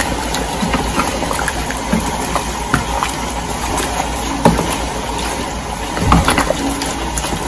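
Pork stew in coconut milk simmering in a nonstick pan, a steady bubbling hiss, while a wooden spatula stirs and scrapes through the chunks, with a couple of louder scrapes past the middle.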